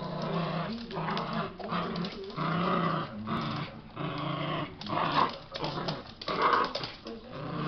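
Yorkshire terrier growling in repeated bouts while tugging on a rope toy, a tug-of-war growl that gets louder twice in the second half.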